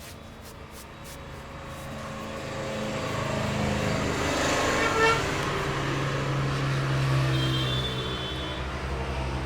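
Road traffic: a motor vehicle passing close by, its engine noise swelling to a peak about halfway and then easing off.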